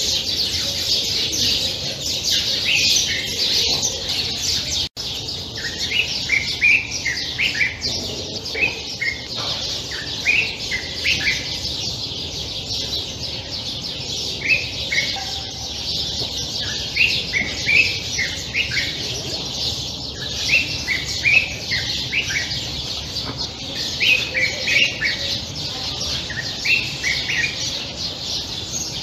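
Common bulbul singing: short phrases of a few quick whistled notes, repeated every couple of seconds, over a steady high twittering.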